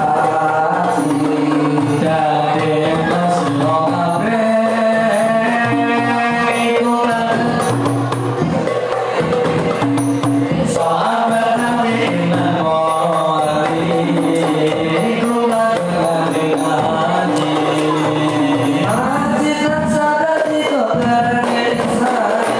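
Rebana frame drums beating a steady rhythm under a sung melody.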